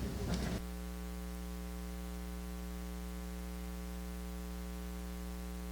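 Room sound with voices cuts off about half a second in, leaving a steady electrical mains hum: a low buzz with many even overtones over a faint hiss.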